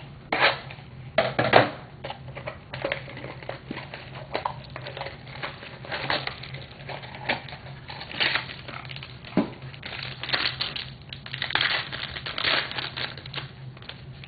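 Crinkling and crackling of trading card pack wrapping as a pack of baseball cards is opened and handled, in irregular bursts.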